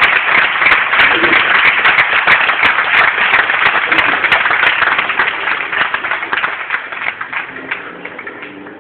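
Audience applauding: dense, loud clapping that dies away over the last three seconds or so.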